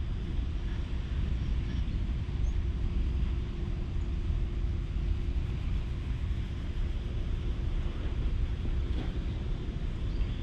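Outdoor wind rumbling steadily on the microphone, with a faint steady hum, like a distant engine, that fades about nine seconds in.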